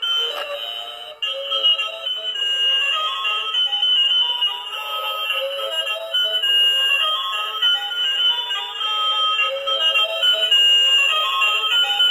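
Electronic jingle from a battery-powered musical toy vehicle: a bright melody of short beeping notes, thin with no bass. It cuts out briefly about a second in, then plays on.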